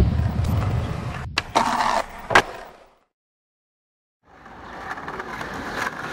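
Intro logo sound effect: a dense rumble with a few sharp hits, fading out about three seconds in to silence. A noisy hiss fades back in over the last two seconds.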